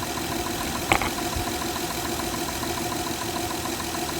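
Car engine idling steadily under the hood, with a rapid, even ticking and one brief higher-pitched blip about a second in.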